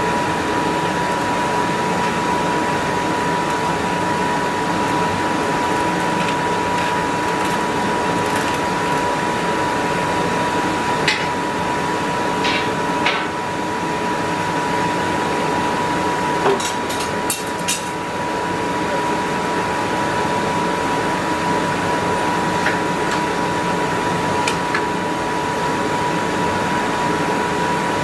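A steady rushing machine noise with a constant whine, broken by a few sharp clicks and taps about a third of the way in and again a little past the middle.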